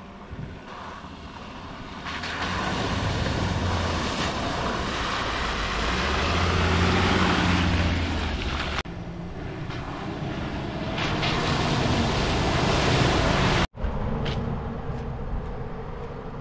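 Four-wheel-drive ute engine running as it drives along a muddy track, with tyre and wind noise, growing louder as it comes closer. The sound breaks off sharply twice, about 9 and 14 seconds in.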